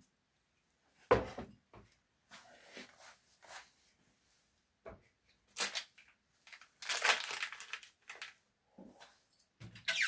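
Kitchen handling noises: a sharp knock about a second in, then scattered clicks and light rustling, with a longer rustling stretch around seven seconds in.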